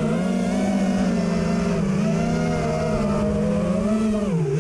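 FPV racing quadcopter's brushless motors and propellers whining steadily, the pitch drifting up and down with the throttle and dipping briefly near the end.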